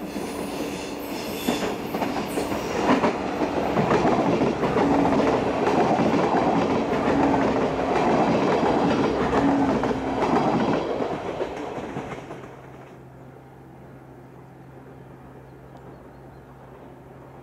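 Stadler GTW diesel railcar passing close by as it leaves a tunnel: engine running and wheels clicking over the rail joints, building up and loudest for several seconds before falling away. About twelve seconds in the sound drops abruptly to a much quieter steady low hum.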